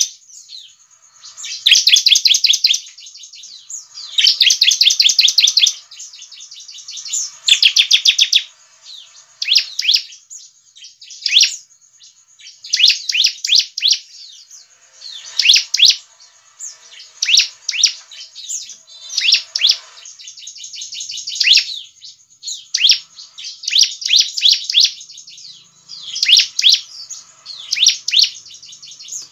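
Bar-winged prinia singing loudly. At first it gives dense, rapid trills of a second or two each. From about nine seconds in it switches to quick clusters of sharp notes that each drop in pitch, with short gaps between phrases.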